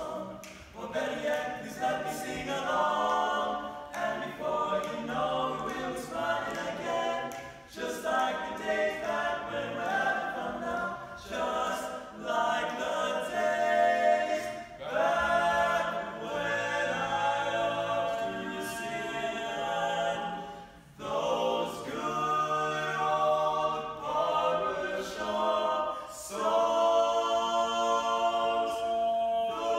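Male barbershop quartet singing a cappella in four-part close harmony, in phrases of held chords with short breaks between them.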